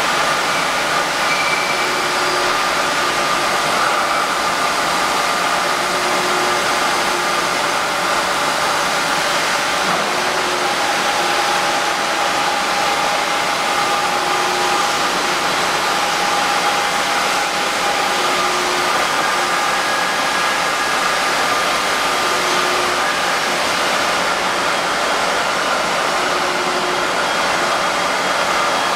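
Droop & Rein FWL 1403 CNC bed milling machine running: a steady, even machine whir with a few faint steady tones and a short low hum recurring about every two seconds.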